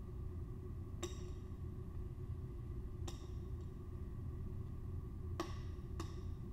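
Four short, sharp clicks with a brief ring, from small pieces and tools handled at the worktable: one about a second in, one about three seconds in, and two close together near the end. Under them runs a steady low hum of room machinery.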